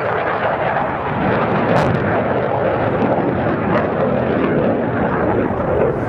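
Turbofan engines of an F-16 and a MiG-29 fighter jet in flight, a steady, even rush of jet noise with no breaks.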